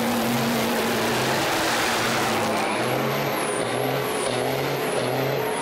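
Diesel semi truck doing a burnout: the engine runs hard at high revs while the rear tyres spin in a cloud of smoke. From about halfway in, the engine note surges and drops under two times a second, with a high whistle rising and falling alongside it.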